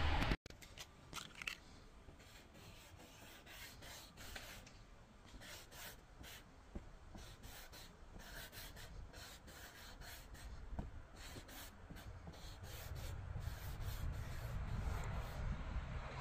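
A thick marker rubbing over cardboard as a tag is written: short strokes in quick, irregular runs. A brief burst of louder noise at the very start cuts off abruptly.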